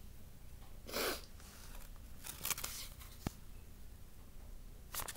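Pages of a paperback book rustling as it is handled and turned, in a few short bursts, with a click about three seconds in.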